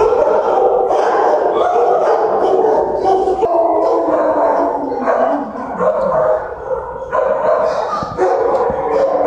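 Many dogs barking and howling at once in shelter kennel runs, a continuous, loud din with no gaps.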